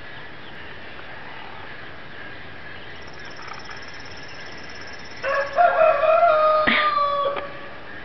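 A rooster crowing once, a single call of about two seconds that steps up in pitch, holds, then drops away at the end, with a sharp click partway through.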